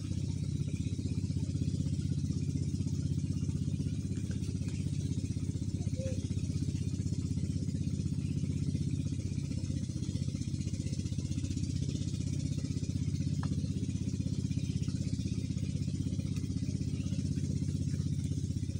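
A small engine running steadily at an even idle.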